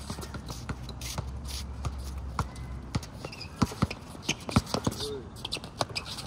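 A basketball bouncing on an outdoor asphalt court, with sneakers scuffing and shuffling as players move; the bounces and footfalls come thickest and loudest between about three and a half and five seconds in.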